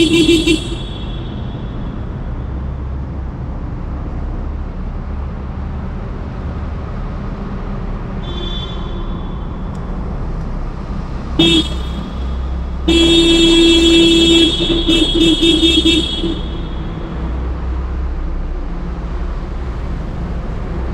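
Vehicle horn honking in traffic over a steady low engine and road rumble. There is a short toot at the start and a faint one about eight seconds in. Near the middle comes a brief blast, followed by a long horn blast that breaks into several quick honks.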